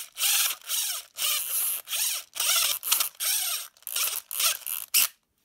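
Airsoft high-capacity magazine being wound by its winding wheel, ratcheting in repeated short strokes about twice a second. The strokes stop just before the end.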